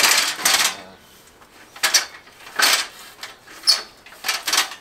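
Aluminium stepladder being handled and set in place: a run of short, uneven scraping and rattling noises, about seven in all.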